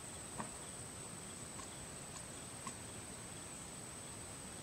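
Quiet outdoor ambience with a steady high-pitched insect drone, and a few faint soft clicks as a young macaque handles the leaves of a shrub.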